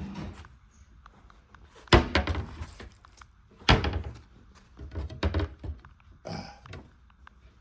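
A series of heavy thunks, four or five knocks spaced a second or so apart, each dying away quickly.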